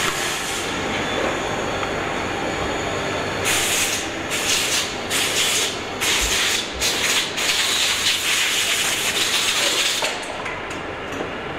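Factory floor noise: a steady machinery din with repeated bursts of hissing between about three and ten seconds in.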